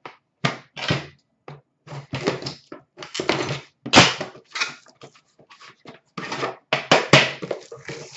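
Hockey card boxes being handled on a glass display counter: a busy run of short knocks, scrapes and rustles as boxes are slid, picked up and set down.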